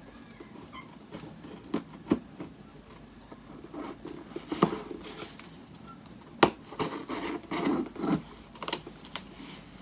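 Small knife slitting the packing tape on a cardboard box: irregular scratching and scraping strokes, with several sharp clicks and taps of the blade against the cardboard.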